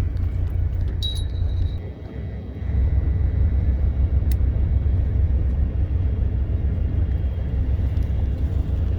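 A steady low rumble that dips briefly and comes back stronger from about three seconds in, with a short high beep about a second in and a single click midway.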